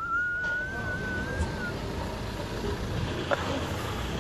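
Steady low rumble of street traffic and idling engines, with one long, thin whistle that rises slightly over the first second and a half.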